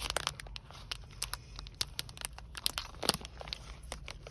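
M&M's Crunchy Cookie candy being chewed close to the microphone: irregular sharp crunches, over a low steady hum.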